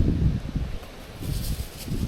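Strong wind buffeting the microphone in uneven gusts, with a light rustle about halfway through.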